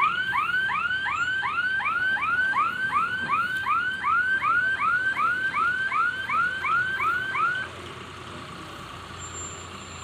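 Electronic vehicle warning alarm sounding a fast train of rising chirps, about three a second, that stops abruptly about three quarters of the way through, leaving a steady low machine noise.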